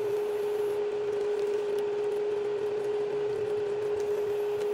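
Steady single-pitched electrical hum from an induction cooktop heating a pan of sauce, over a faint hiss.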